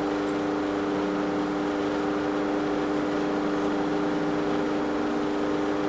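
Steady machine hum made of a few fixed pitches over a low hiss, unchanging throughout.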